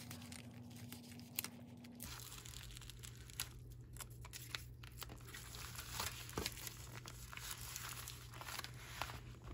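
Crinkling and rustling of a plastic poly bubble mailer being handled, with the adhesive strip's release liner peeled away and the flap pressed shut, in a string of quick rustles and small clicks.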